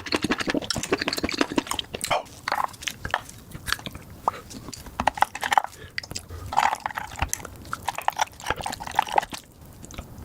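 Close-miked chewing of a mouthful of mushrooms: a dense, irregular run of quick mouth clicks and smacks.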